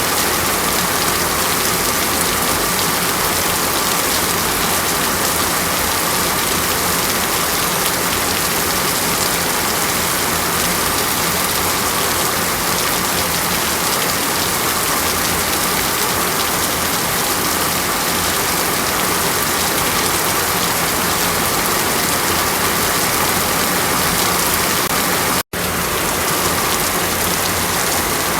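Steady, even rush of water, like heavy rain or falling water. It cuts out for a split second about 25 seconds in, then resumes unchanged.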